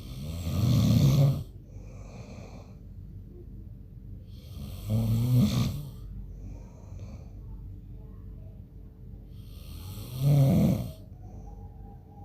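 A man snoring in his sleep: three loud, rattling snores about five seconds apart, with softer breaths between them.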